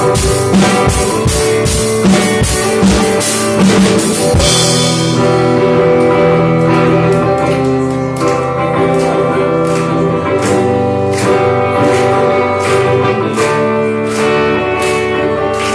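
Live rock band playing: guitars and bass over a drum kit. Dense, fast drumming builds to a cymbal crash about four seconds in, then held guitar chords ring over lighter, evenly spaced drum strokes.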